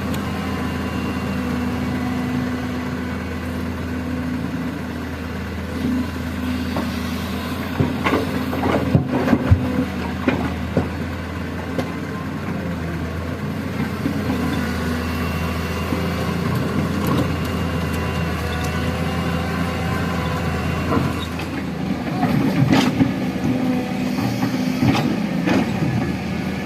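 Heavy excavator's diesel engine running steadily, with two stretches of irregular knocking and clatter: one about a third of the way in, one near the end.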